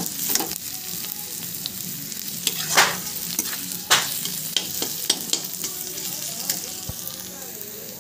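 Chopped onions sizzling in hot oil in a kadhai while being stirred, with clicks and a few sharper scraping strokes against the pan, the loudest about three and four seconds in.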